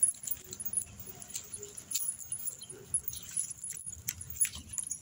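Metal chain dog leash jangling and clinking irregularly as the dog pulls and walks on it.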